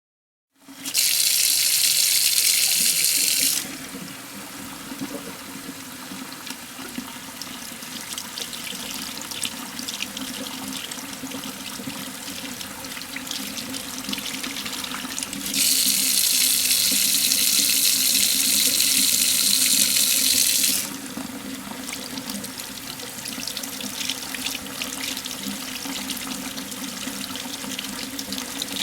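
Water sprayed into a surgical tray. There are two loud hissing sprays: a short one about a second in and a longer one about halfway through. Between and after them, quieter water runs and trickles steadily.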